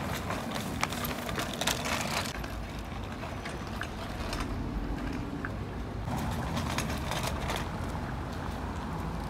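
City street background noise: a steady low rumble with scattered clicks and knocks, most of them bunched in the first two seconds.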